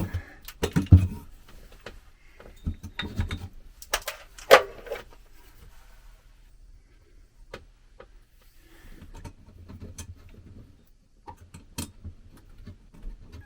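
Small metal clinks, clicks and rattles from handling an old closet light fixture, its mounting screws and wiring, busiest in the first few seconds and sparser after.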